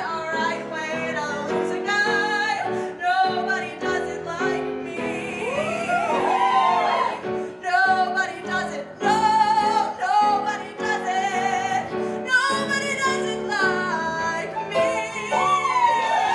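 A woman singing a show tune through a microphone, accompanied by live piano.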